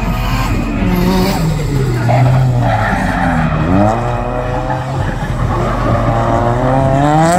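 Drift car's engine revving up and down as it slides sideways, with its rear tyres screeching against the tarmac. The engine note dips a little before halfway, then climbs steadily near the end.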